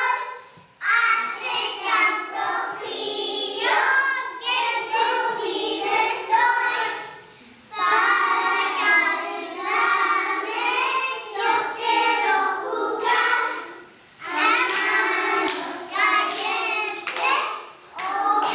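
A group of young children singing a song together, in phrases with short pauses between them.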